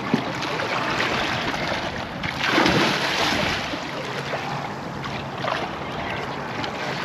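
Water splashing and churning against the boat as a hooked sturgeon thrashes at the surface, with one louder splash a little before the middle. Wind buffets the microphone throughout.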